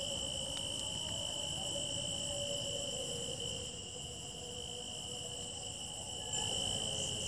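Crickets trilling steadily in a continuous, high-pitched chorus.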